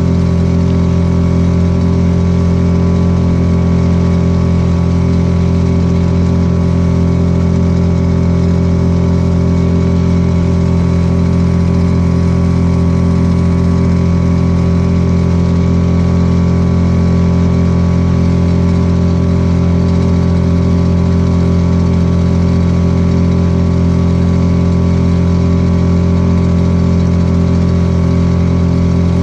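Small outboard motor on a Sportspal canoe running steadily at constant speed while under way.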